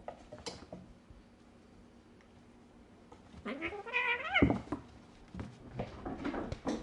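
A kitten gives one drawn-out meow about halfway through, rising then falling in pitch. Light clicks and rustles come before and after it.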